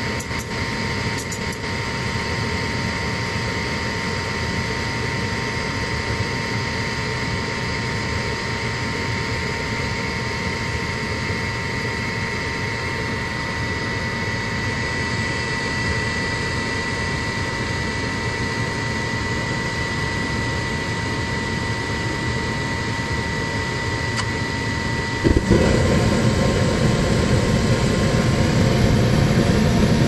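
Gas furnace starting up: the draft inducer motor runs with a steady high whine over a mechanical hum. About 25 seconds in, the whine stops and a louder, deeper rush of air takes over and holds.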